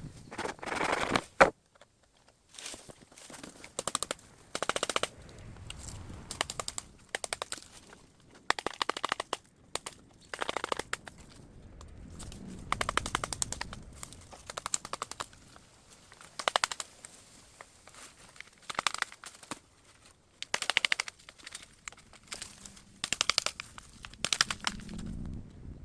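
Hand saw cutting through bamboo: repeated strokes, each a quick rattling run of the teeth lasting under a second, about one every two seconds.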